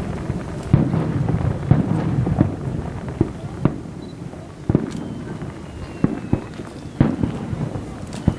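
Aerial fireworks shells bursting, with sharp bangs about once a second or less apart, over a low rumble of echoing reports.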